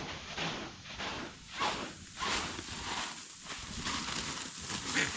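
Loose grain being scooped and pushed by hand in a truck bed, the kernels shifting with a dry rustle in repeated swishes.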